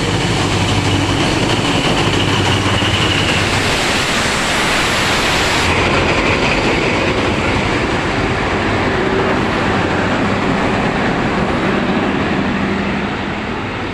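Train passing, hauled by TCDD DE 24000-class diesel-electric locomotives: the diesel engine runs during the first few seconds, then the wheels roll over the track in a steady rush that eases a little near the end.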